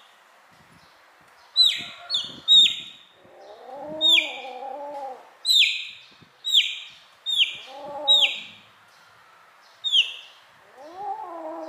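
A young chick peeping: about ten loud, short peeps in irregular groups, each one falling sharply in pitch. Between them a lower, drawn-out call comes three times.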